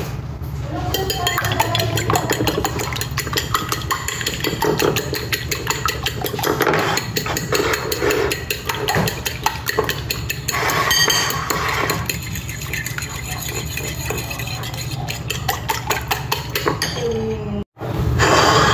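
Metal fork beating eggs and milk in a ceramic bowl: rapid clinking of the tines against the bowl, over a steady low hum. The clinking stops with a brief break near the end.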